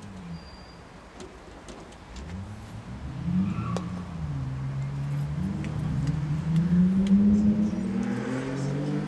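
A motor vehicle engine, with the accelerating note of a car, coming in about two seconds in, its pitch dipping and then rising as it gets louder.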